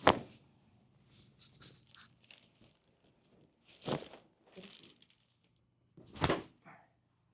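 Chiropractic adjustments: three sharp thuds from thrusts on a patient on the treatment table, with joint cracks. The first, right at the start, is the loudest; the others come about four seconds in and about six seconds in, with soft rustling and shuffling in between.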